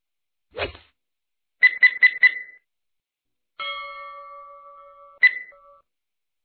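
Synthetic quiz-animation sound effects: a short swish, then four quick bright dings in a row as the answer options pop up. A sustained chime of several steady tones follows, fading over about two seconds, with one more sharp ding just before it ends.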